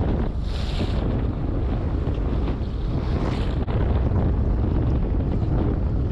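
Wind buffeting the microphone on an open boat at sea, over water washing along the hull, with two brief higher hisses about half a second and about three seconds in.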